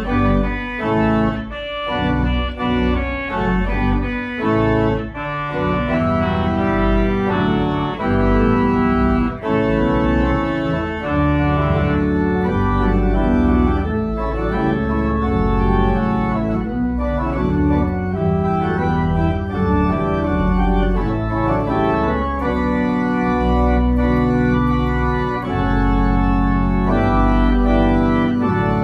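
Two-manual church organ playing full chords over deep bass notes. The first few seconds move in short, detached chords, then it settles into long held chords.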